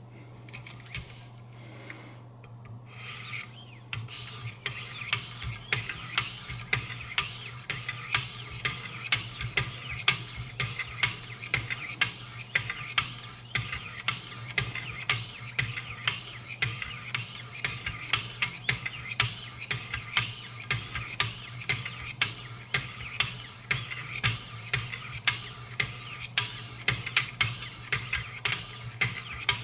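Knife blade stroked along the 800-grit stones of a Wicked Edge guided sharpener, rasping in a steady rhythm of about three strokes every two seconds. The strokes start a few seconds in.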